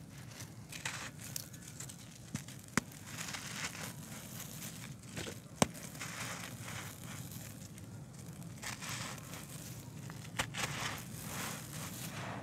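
Hands crushing and crumbling dry, dusty handmade dirt shapes: gritty crunching in waves, with loose grit sifting through the fingers. A few sharp cracks stand out, the loudest about three and five and a half seconds in.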